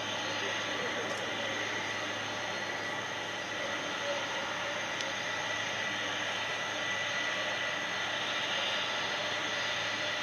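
Boeing 747's four jet engines running with a steady whine as the jumbo rolls slowly on the runway, growing slightly louder.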